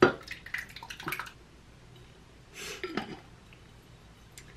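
A glass jar of marinara sauce being opened and emptied into a slow cooker: a sharp click at the start, a run of light clicks and knocks of glass and lid, and a soft wet plop of sauce about three seconds in.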